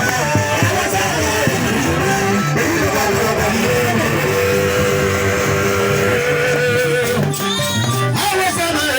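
Music from a band, with a plucked guitar line over sustained notes and a steady low rhythm.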